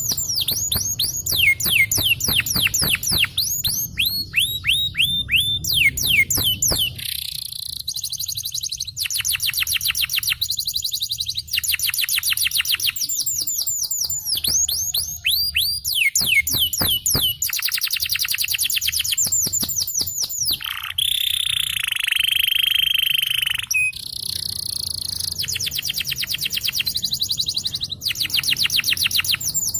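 Yellow canary singing a long rolling song: runs of fast, repeated falling whistled notes in trills, broken by short pauses, with a held buzzy note about two-thirds of the way through.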